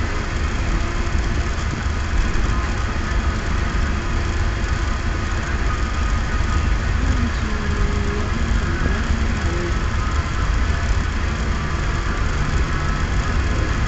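Steady engine and road rumble heard from inside the cabin of a van being driven.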